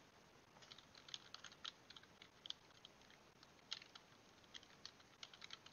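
Computer keyboard typing: faint, irregular key clicks, several in quick runs with short pauses between.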